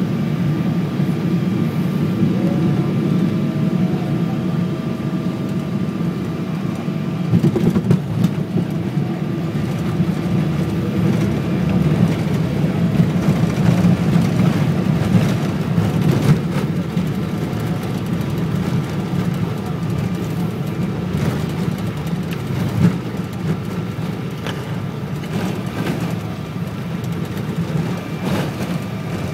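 Airliner cabin noise while the jet taxis after landing: a steady low rumble with a faint steady whine above it and a few scattered knocks.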